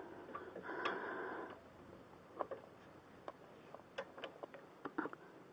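A ratchet wrench being worked slowly on the car's rear brake hardware, giving a few separate light clicks, after a short breathy noise about a second in.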